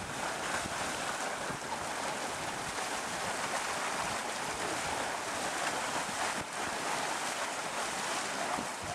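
Steady rushing hiss, like surf, from the steaming, churning mud pool of Yellowstone's Mud Volcano.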